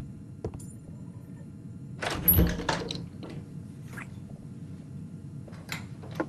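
A door being opened, with one loud thunk about two seconds in, over low room hum and a few light knocks.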